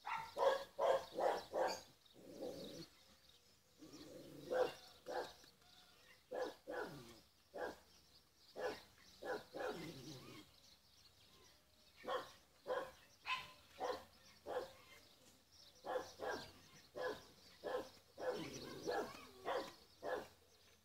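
A dog barking over and over, in runs of several quick barks with short pauses between them.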